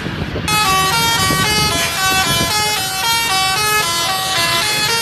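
Tour bus 'telolet basuri' multi-tone horn playing a fast melody of short stepped notes, after a brief break right at the start.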